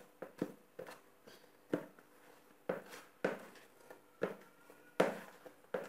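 Hands punching down and kneading risen bread dough in a plastic bowl: irregular soft slaps and squelches, the loudest a little before the end. The risen dough is being knocked back to press out the air.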